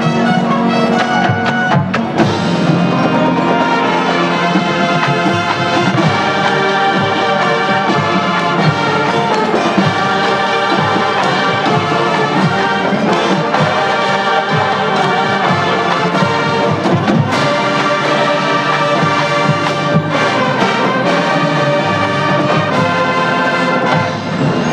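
Marching band playing its field show: brass winds over percussion, loud and steady.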